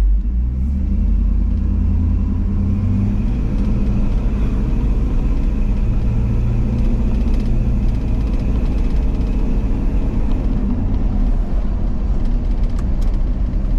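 A 5.3 L LS V8 with headers, swapped into a 1975 GMC K15 pickup, running at driving speed, heard from inside the cab as a steady low rumble with road noise. The engine pitch rises a little a few seconds in.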